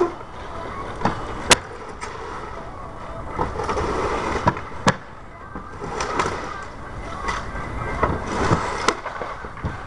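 Work on an old shingle roof: a hand tool knocking and scraping on the roofing, with several sharp cracks, the loudest about a second and a half in, another near five seconds and a third near nine.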